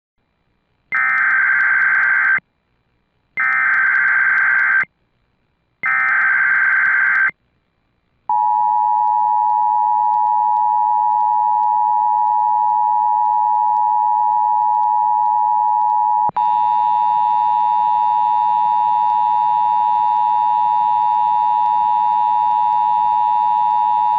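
Emergency Alert System SAME header: three bursts of digital data tone, each about a second and a half long, then the steady two-tone EAS attention signal for about sixteen seconds. The attention signal breaks briefly about halfway through, and fainter higher tones sound along with it after the break.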